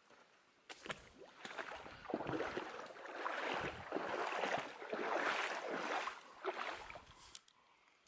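Irregular splashing and sloshing of water close by, starting about a second in and stopping shortly before the end.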